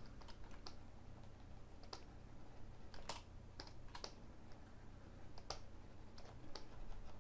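Faint, scattered clicks of computer keys, about eight sharp keystrokes at irregular intervals, over a low steady hum.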